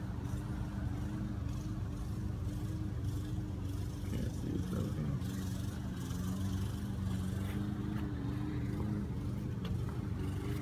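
Steady hum of a vehicle engine running, its pitch shifting a little about five seconds in.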